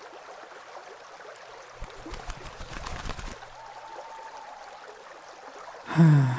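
Background ambience of a flowing creek, water trickling steadily, with a stretch of louder, uneven water movement about two to three seconds in. A man's voice makes a short sound near the end.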